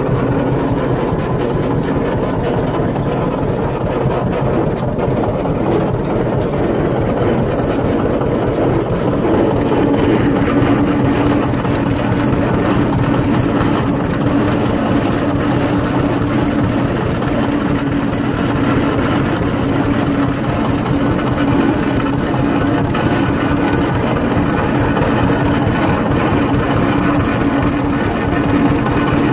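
Tractor engine running steadily while driving, with a steady hum that comes in about nine seconds in.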